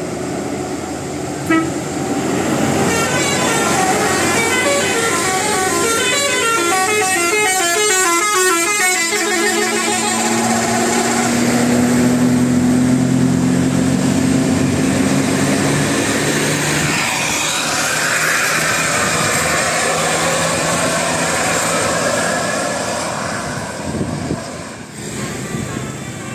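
Bus telolet musical horn playing a quick run of stepping notes, then one long held low note lasting several seconds. About two-thirds of the way through the horn stops and a noisier stretch without notes follows.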